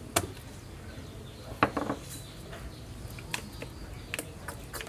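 Small ceramic bowls and sauce bottles clinking and knocking on a wooden table as chilli sauce is squeezed into the bowls. There are a few sharp clicks, loudest as a short cluster about a second and a half in.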